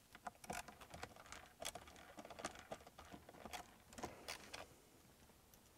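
Faint, irregular clicks and light scraping of a screwdriver backing Phillips screws out of plastic console trim. The clicks thin out near the end.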